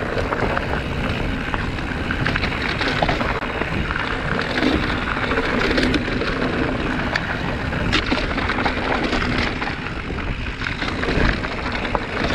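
Mountain bike riding down a loose, rocky trail: a steady rush of tyre noise over gravel and stones, with rattling from the bike and a few sharper knocks, about six and eight seconds in.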